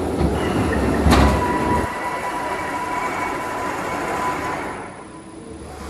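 ZAYER ARION 3000 gantry CNC milling machine's axes traversing: a low rumble for the first two seconds, with a sharp click about a second in. A steady high whine from the drives follows the click and fades out near the end.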